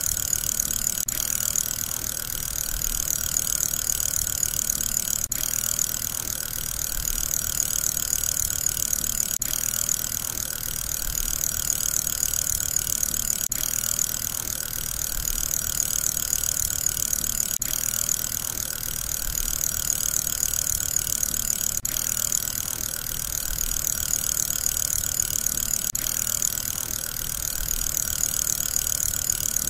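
Steady whirring of a fidget spinner spinning on its bearing, mostly a high hiss with a fainter mid-pitched hum. It is a looped sound effect that repeats about every four seconds.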